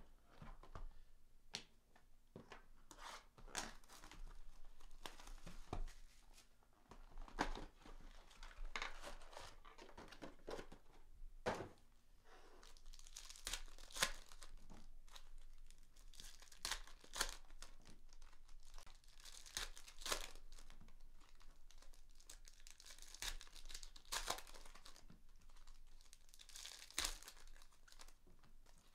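Trading-card pack wrappers being torn open and crinkled by hand, with irregular sharp rips and rustling.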